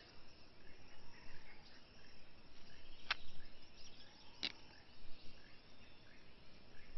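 Forest ambience: a faint steady bed of insects with small scattered bird chirps, broken by two sharp clicks about three and four and a half seconds in.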